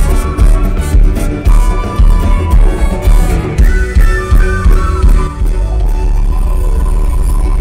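Live rock band playing, with a drum kit pounding a steady beat under guitars. About five and a half seconds in the beat stops and a steady held chord rings on.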